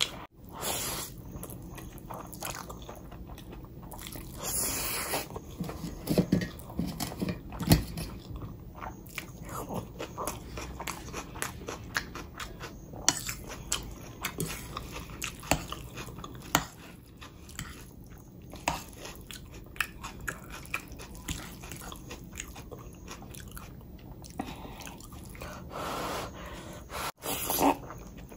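Close-miked eating: chewing and biting with crunchy bites and many small sharp mouth clicks, with a few louder bites along the way.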